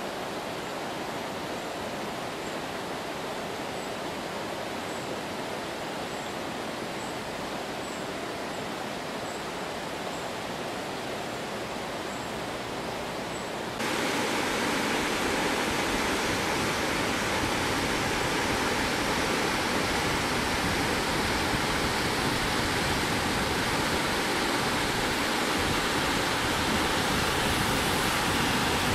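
Rushing water of river rapids over rocks, a steady noise that jumps suddenly to a louder level about fourteen seconds in.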